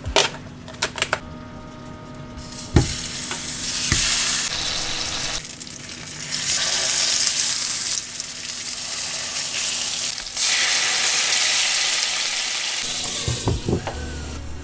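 Hamburg steak patties sizzling in hot oil in a frying pan, a loud hiss that swells and dips with two short lulls. Sharp snips and clicks near the start as scissors cut open the plastic packet, and a few knocks of the spatula near the end.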